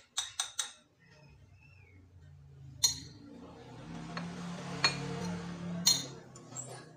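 Knife tapping three times against a ceramic saucer as chili is sliced, then single sharp clinks of crockery and metal spaced about a second apart. A low hum with hiss swells in the middle and fades near the end.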